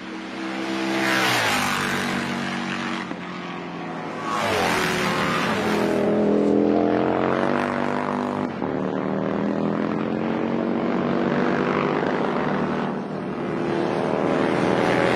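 Racing motorcycles passing at speed, several in turn, each one's engine pitch falling as it goes by, with engine sound carrying on steadily between the passes.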